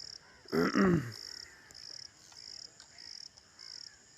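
Insects chirping in a steady, high-pitched rhythm of about two to three pulses a second. One short, loud call cuts in about half a second in.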